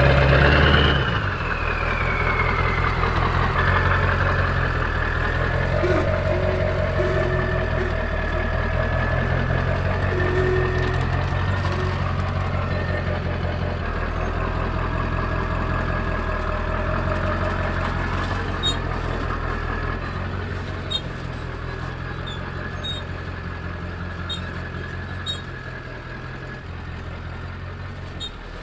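Ford F-350 diesel pickup's engine running at low revs as the heavy truck camper crawls through a tight rocky squeeze on a 4x4 trail. Steady throughout, getting gradually quieter over the last part.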